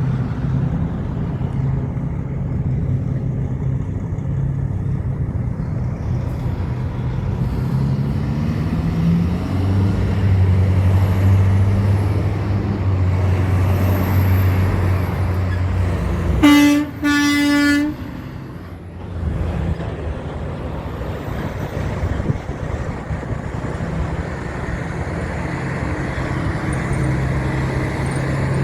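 A heavy truck's diesel engine drones past and its pitch rises as it pulls through. About halfway in, the truck sounds its horn in two blasts, the second a little longer. Steady road traffic noise follows.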